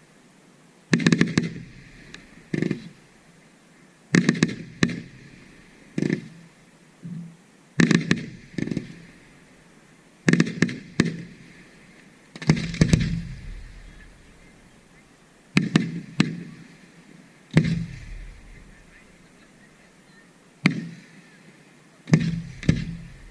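Aerial fireworks shells bursting overhead: sharp bangs every second or two, often in quick pairs, each trailing off in a rolling echo, with two deeper booms about halfway through and a little later that rumble longer.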